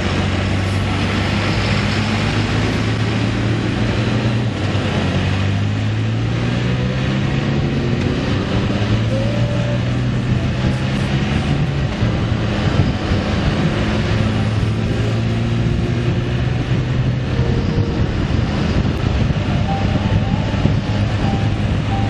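A vehicle engine running on the move, with steady road and wind noise over it. The engine note holds steady and then shifts pitch in steps several times as the engine speed changes.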